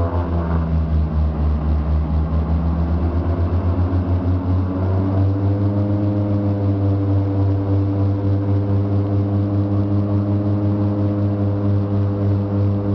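Let L-410 Turbolet's twin turboprop engines and propellers running at take-off power, heard inside the cockpit during the take-off roll: a loud, steady drone that pulses a few times a second, its tones shifting and settling about five seconds in.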